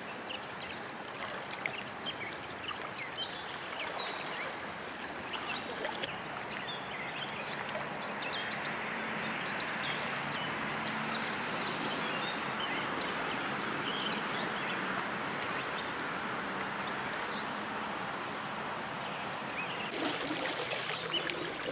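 Steady rush of creek water, with scattered small splashes from a hooked trout fought at the surface.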